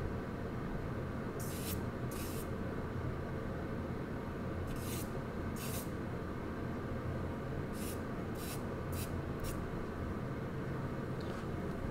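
Charcoal stick scratching across paper in short strokes: two, a pause, two more, then a quicker run of four, over a steady low hum.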